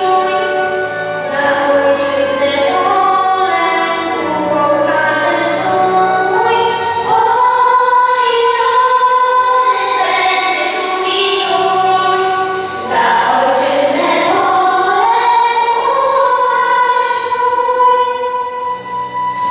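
A children's school choir singing a song in sustained, melodic lines over an instrumental accompaniment with a steady bass line.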